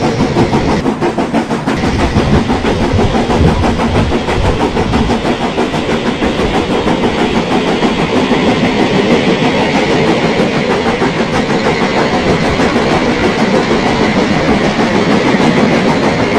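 Garden-scale model train running on outdoor track: a steady rumble with rapid clicking of the wheels over the rails.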